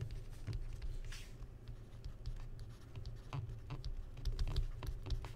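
A stylus writes on a tablet, making a string of light, irregular ticks and scratches over a low steady hum.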